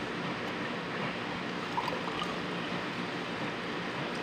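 Juice pouring from a glass pitcher into a ceramic mug, a steady trickle of liquid.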